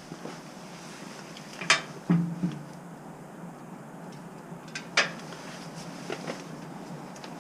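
Sharp metallic clicks and taps from hand tools handled under a pickup truck, two of them loud, about two seconds in and about five seconds in, with a few fainter ticks between.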